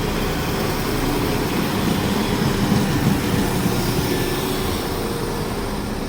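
Class 172 Turbostar diesel multiple unit running at the platform: a steady rumble of engine and wheels that eases off toward the end.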